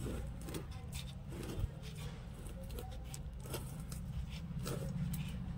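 Faint rustling and small irregular clicks as fingers brush and handle an adenium (desert rose) caudex and its exposed roots, over a steady low rumble.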